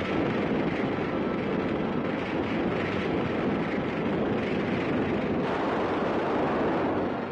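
Explosion and fire sound effect from an old film soundtrack: a dense, steady rumble with no single sharp blast.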